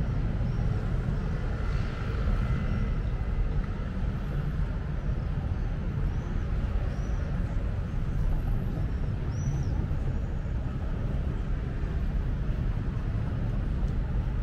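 City street ambience: a steady low rumble of traffic, with short high chirps, likely small birds, a few times.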